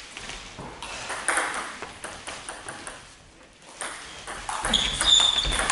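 Table tennis ball clicking off bats and the table during play, with a louder run of hits in the second half and a short high squeak near the end.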